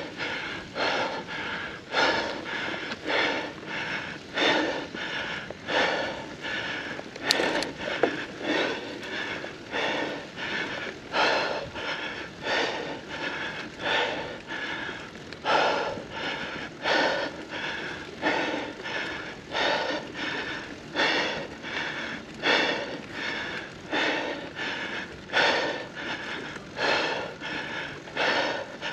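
A mountain biker's heavy, rhythmic breathing close to the microphone, in and out about once a second: hard breathing from exertion during a gruelling race.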